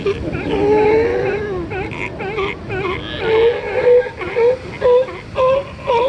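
Sea lions calling over a steady wash of ocean surf. The calls are drawn-out, wavering moans at first, then a run of short repeated barks about two a second in the second half.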